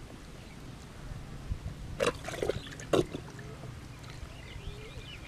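Hands and arms squelching and sloshing through wet mud and water while groping for eels in a flooded mud hole, with three loud wet sloshes about two to three seconds in.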